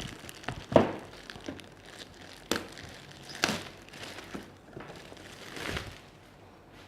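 Retail headphone box and its packaging being handled: soft rustling and crinkling with a few light knocks, at roughly second-long intervals.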